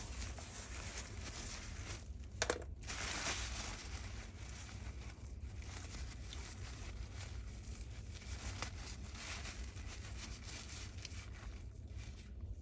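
Continuous rustling and scraping from cleaning caked dust out of the inside of a cordless vacuum's roller-head housing, with a sharp click about two and a half seconds in.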